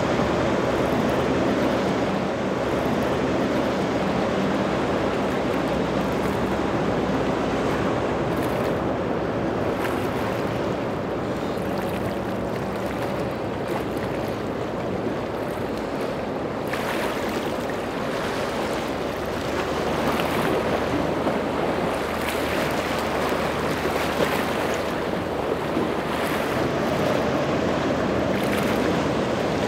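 Ocean waves and surf at a rough inlet, with wind on the microphone and boat engines running steadily underneath.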